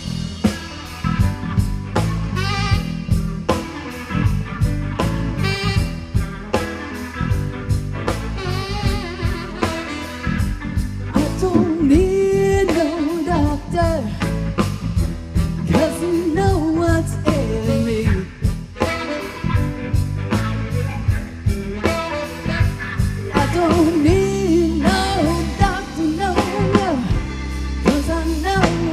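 Live band playing an up-tempo blues-rock number: a steady drum beat with electric bass, keyboards and saxophone. A bending lead melody line comes in about eleven seconds in.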